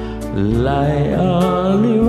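Slow ballad backing music with a singing voice that comes in about half a second in and holds a note that wavers in pitch.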